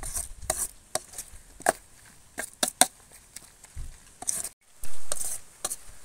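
A metal spoon stirring a wet, pasty cucumber pickle mix in a steel bowl: irregular clinks and scrapes of spoon against steel, with two longer scraping swishes a little past the middle.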